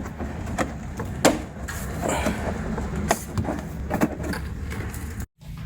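Plastic push-in clips and the wheel-well liner of a Jeep Wrangler being worked loose by hand: scattered sharp clicks and knocks with plastic scraping over a low hum, cut off abruptly near the end.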